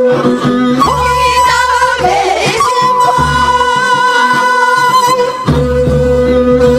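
A group of women singing a Korean folk song (minyo) together into microphones, holding long steady notes.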